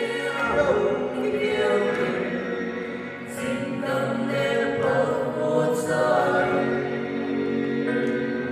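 A group of voices singing a song together over instrumental backing, with long held notes.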